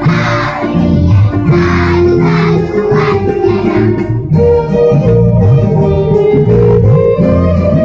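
A group of young children singing along to loud keyboard-led music with a steady bass line. After about four seconds the voices drop away and the keyboard accompaniment carries on alone.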